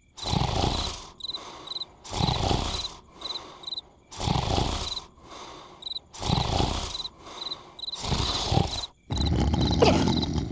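Cartoon snoring: loud snores in a regular rhythm, about one every two seconds, with crickets chirping in the gaps between them. About nine seconds in, a louder continuous noise takes over.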